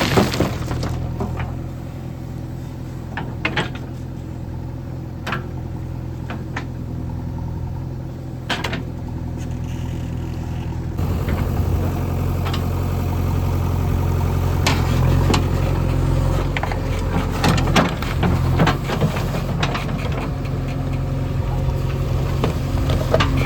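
Diesel engine of a backhoe loader or tractor running steadily, louder from about eleven seconds in, with scattered sharp knocks.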